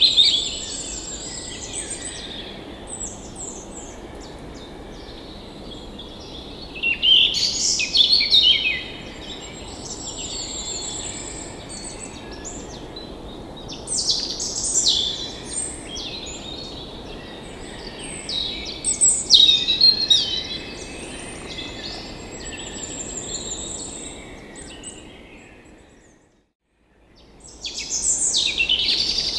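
Several songbirds chirping and singing in short trills and calls over a steady background hiss. The sound fades out briefly about 26 seconds in, then returns with louder chirping.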